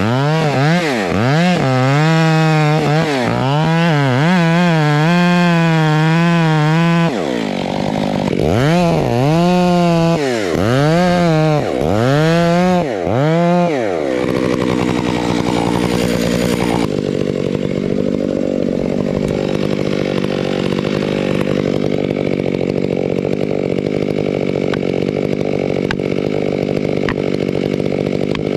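Large two-stroke chainsaw cutting into a cottonwood trunk, its engine pitch rising and falling over and over as the chain bites into the wood and eases off. About halfway through it drops to a steady idle.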